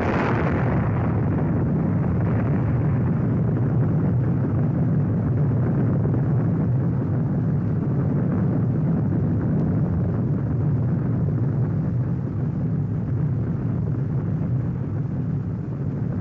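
Atomic bomb explosion: a long, steady rumbling roar that follows a sharp blast, its upper crackle fading in the first second, the deep rumble then holding and easing slightly near the end.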